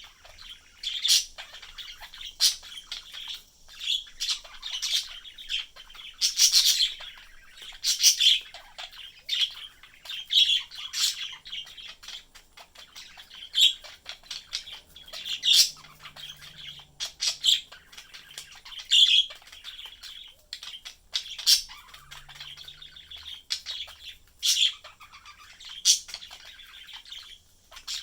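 Budgerigars chirping and warbling, with frequent short, sharp, high-pitched calls every second or so over a softer continuous chatter.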